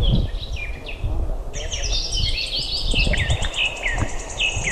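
Birds chirping: repeated short falling calls, joined about a second and a half in by a fast, high trill, over a low uneven rumble of water and handling noise on the camera.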